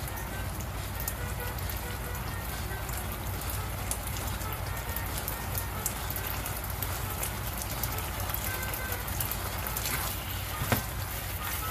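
Pork steak slices simmering in sauce in a frying pan, a steady fine sizzle and crackle over a low hum. Near the end, metal tongs click sharply against the pan as the meat is turned.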